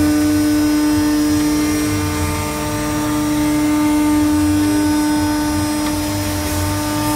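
Chencan 1325 CNC router's spindle running at a constant speed, a steady whine over a low rumble, as its bit cuts through a PVC sheet.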